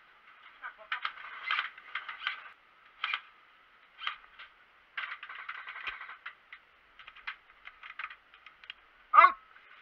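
Airsoft gunfire: scattered shots and short bursts of rapid clicks, with a few distant voices, all heard thin and tinny. A brief loud call falling in pitch stands out about nine seconds in.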